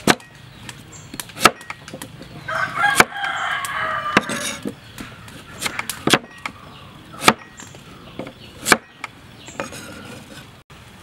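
Steel cleaver chopping carrot on a wooden cutting board: single sharp chops every second or two, each blade strike landing on the wood.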